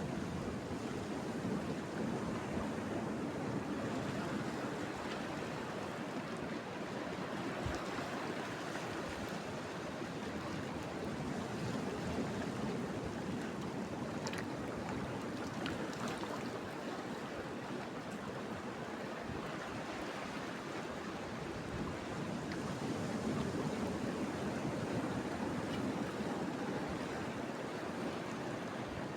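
Sea surf washing on the shore: a steady rush of waves that swells and eases slowly.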